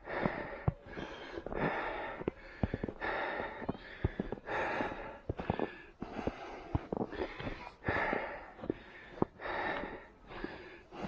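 A runner breathing hard and rhythmically, about one breath every three-quarters of a second, with short sharp footfalls in snow between the breaths.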